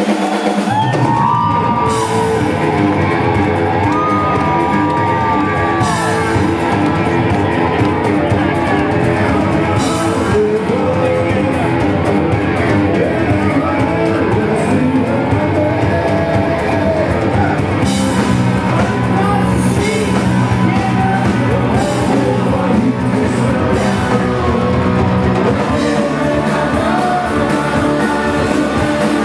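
Punk rock band playing live and loud: electric guitars, bass and drums with a singer, the drums and bass coming in right at the start.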